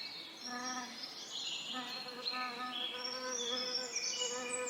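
Bees buzzing in a low, wavering hum that comes and goes, with songbirds singing high, chirpy phrases over it.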